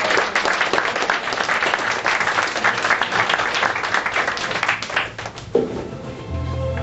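Live audience applauding, the clapping dying away about five and a half seconds in as soft music starts.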